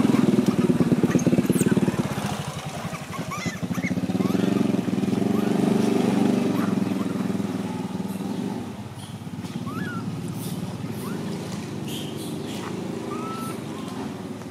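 An engine running nearby with a low, even pulsing, louder in the first couple of seconds and again in the middle, then dropping back after about eight seconds.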